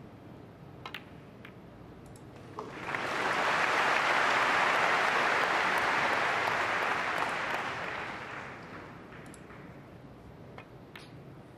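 Snooker balls clicking as a shot is played, then audience applause for a potted black that rises suddenly, holds for about five seconds and fades away. Another sharp ball click comes near the end.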